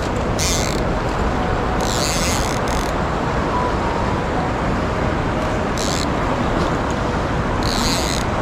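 Steady rush of a mountain stream's flowing water, with a few brief high hissing swishes over it.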